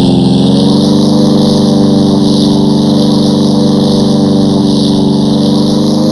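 RC model airplane engine running steadily; its pitch drops in the first half second, then holds level.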